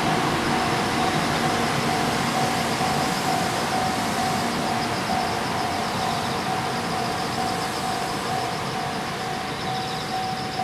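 Japanese level-crossing warning bell ringing in steady repeats while the N700A Shinkansen train rolls slowly past over the crossing, its rail noise gradually fading.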